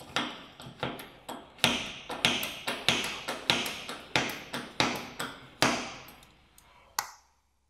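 Metal-on-metal clanks from a small jack being worked under the front hub to press the steering knuckle up onto the strut of a Peugeot Partner. There are about a dozen sharp strokes, one every half second or so, each with a short ring. A last single clank comes after a brief pause near the end.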